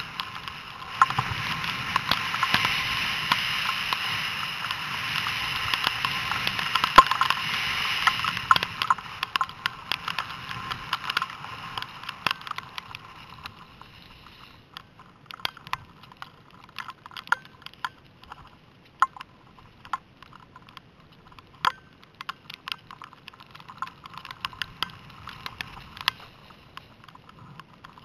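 Skis sliding over snow, heard through a helmet-mounted camera: a steady rushing hiss of skis and air that fades about eight to fourteen seconds in. After that it is quieter, with many scattered clicks and ticks.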